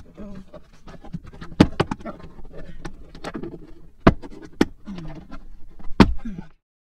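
Hands working wiring through a vehicle's plastic liftgate trim: a series of sharp plastic clicks and knocks over rustling, with some low murmured voice sounds.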